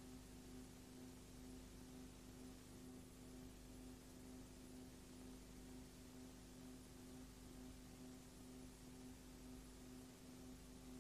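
Near silence: a faint, steady low hum with even background hiss.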